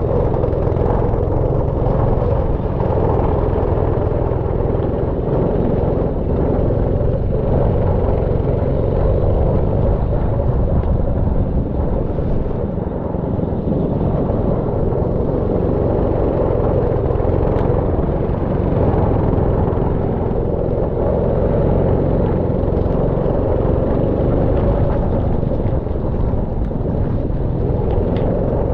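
Go-kart running steadily on the track, a loud continuous rumble with little change in level.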